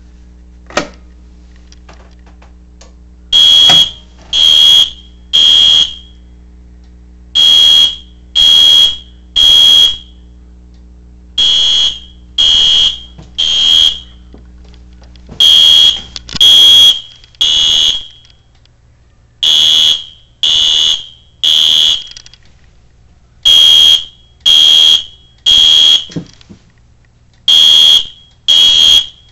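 A dual-action fire alarm pull station clicks as it is pulled about a second in. Then a fire alarm horn sounds the temporal-3 (Code-3) evacuation pattern: three loud blasts, a pause, and again, over and over.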